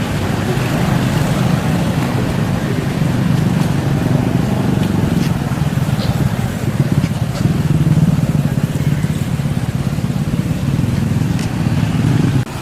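A motor engine running steadily with a low hum, dropping away abruptly near the end.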